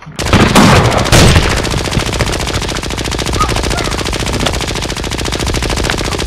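Rapid automatic-fire clatter: a few louder bangs in the first second, then a fast, even, unbroken run of shots that stops just after the end.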